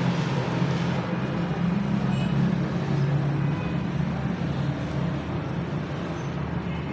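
A steady low engine hum with a noisy hiss over it.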